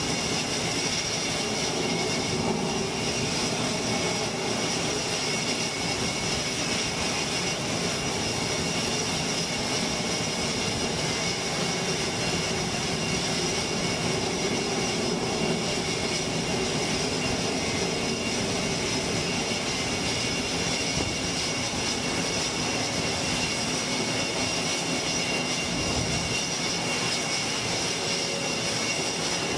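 F/A-18 Super Hornet jet engines (General Electric F414 turbofans) running steadily: a constant rush of jet noise with a high, even whine on top.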